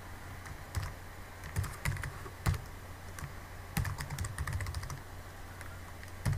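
Typing on a computer keyboard: irregular keystrokes in short runs with brief pauses, over a low steady hum.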